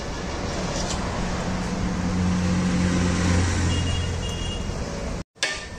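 Steady roar of road traffic, with a motor vehicle's engine hum swelling and fading in the middle as it passes. Near the end the sound cuts out for a moment and a sharp knock follows.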